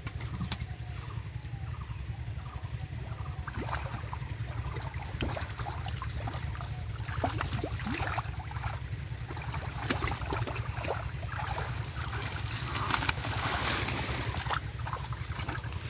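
Hands groping and sloshing through shallow muddy water and mud, with many short sharp splashes and feet wading; the loudest splash comes about thirteen seconds in. A steady low rumble runs underneath.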